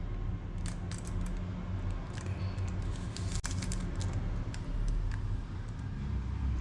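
Plastic 3x3 Rubik's cube being turned layer by layer, a string of irregular quick clicks and clacks from the turning faces, over a low steady hum.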